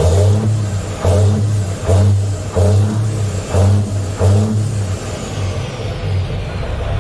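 N14 Cummins inline-six diesel running after a fuel pump replacement, revved in short repeated bursts about once a second, then settling into a steady idle near the end with a high whine falling away.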